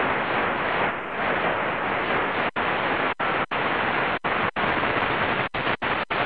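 Shortwave static hissing from a Qodosen DX-286 receiver's speaker while it is tuned in fast steps through the 19-metre band, with no station on these frequencies. The hiss breaks off for an instant about eight times in the second half as the dial is turned.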